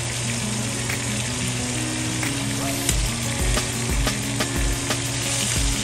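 Beef steaks searing with rosemary in a stainless steel skillet, sizzling steadily in hot fat, with a few knocks of metal tongs against the pan from about halfway in as the meat is turned.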